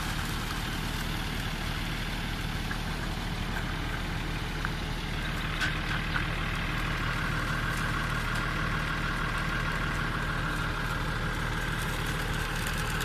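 Pigeon-transport truck's engine idling steadily, with a few faint clicks about five to six seconds in.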